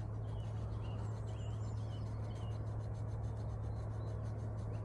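A knife blade cutting into a green willow twig, a faint rapid scratching, over a steady low hum, with a few faint bird chirps.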